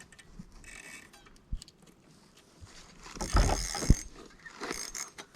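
Mechanical clicks and handling knocks, with a louder rustling scrape and a sharp thump about three and a half to four seconds in.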